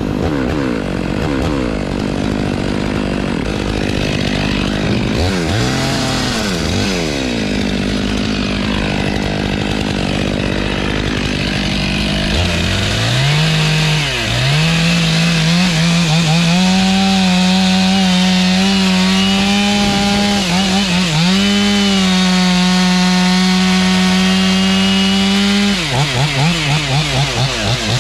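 Two-stroke Stihl chainsaw revving up about twelve seconds in and then held at full throttle, cutting into a poplar trunk. Its pitch dips briefly a couple of times and flutters near the end. Before that, engine noise rises and falls in pitch.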